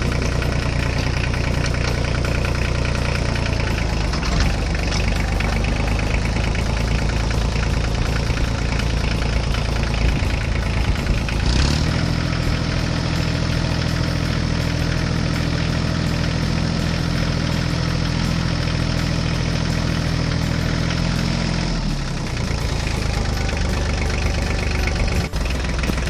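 Tractor engine running steadily. Its tone changes about twelve seconds in and changes back about ten seconds later.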